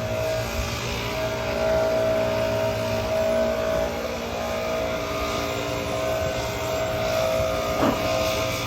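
School bus running, a steady engine drone with a held whining tone over it and a brief sharp sound near the end.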